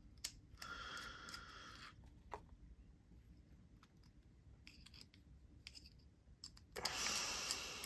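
Faint clicks and scrapes of a precision Torx driver bit turning small screws into a folding knife's handle, with a louder, longer rasp near the end.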